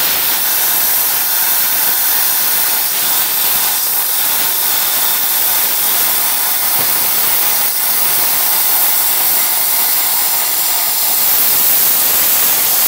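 Air plasma cutter cutting 8 mm steel plate: a loud, steady hiss of the arc and compressed air at the torch, unbroken throughout.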